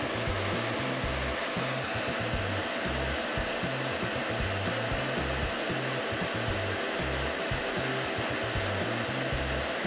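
Laser cutter at work cutting: a steady rush of blown air from its fans, with low tones shifting every fraction of a second underneath.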